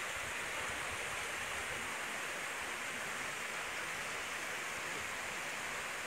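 Steady rush of a shallow mountain stream running over rocks and spilling across a low stone weir.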